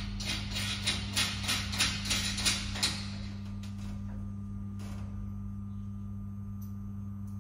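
A quick run of about eight knocks and taps from a worker on a ladder, in the first three seconds, then a few scattered clicks, over a steady low hum.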